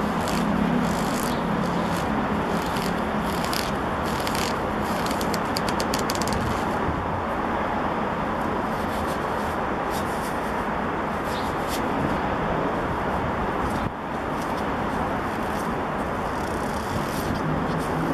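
Brown lambskin leather gloves being pulled on and worked over the fingers, leather rubbing in short strokes, quickest in the first several seconds and again near the end, over steady city traffic noise.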